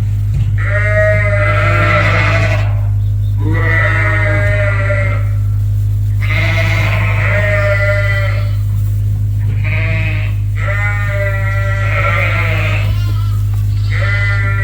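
Sheep bleating over and over, about six drawn-out calls each a second or two long, over a steady low hum.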